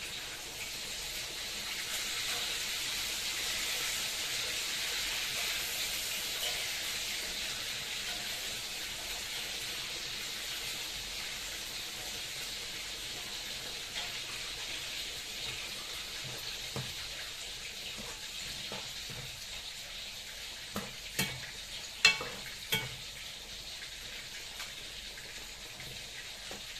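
Chayote soup with coconut cream simmering in a wok on a gas burner, a steady bubbling hiss. About three-quarters of the way through come a few sharp clinks of the metal ladle against the wok as stirring begins.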